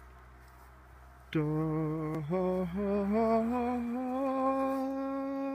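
A person humming a tune, starting about a second in: a few short notes that step upward in pitch, then one long held note.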